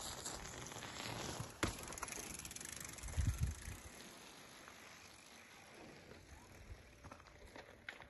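Mountain bike rolling close past on a gravel trail: tyre noise on the gravel with a rapid ticking, fading as it moves off. There is a sharp click about a second and a half in and a low thump about three seconds in.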